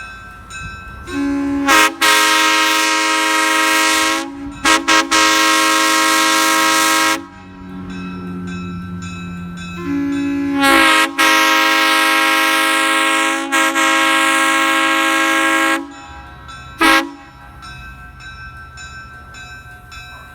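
1951 Nathan Airchime round-base M3 three-chime air horn blowing a steady chord on compressed air. It gives two long blasts of about six seconds each, the first broken by a few quick toots in its middle, then one short toot near the end.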